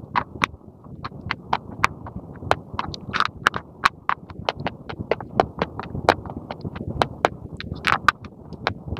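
Chewing school chalk with the microphone close to the mouth: a steady run of sharp, dry crunches, about three to four a second, as the chalk sticks are bitten and ground between the teeth.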